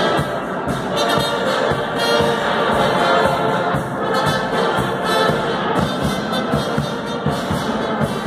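Brass band with percussion playing a sertanejo medley: sustained brass chords over a steady drum beat.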